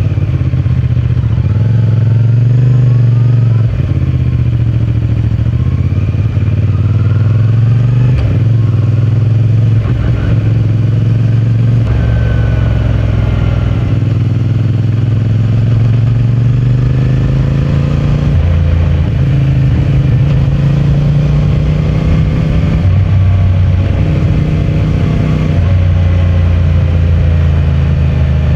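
CFMOTO 450MT's parallel-twin engine and stock exhaust under way, revs rising and falling repeatedly as the bike accelerates and shifts gears.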